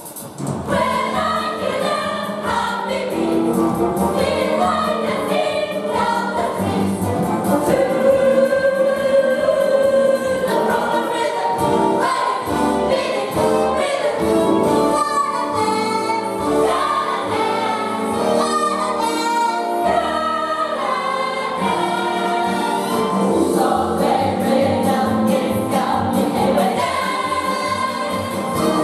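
A chorus of voices singing a musical-theatre number with instrumental accompaniment, continuous throughout.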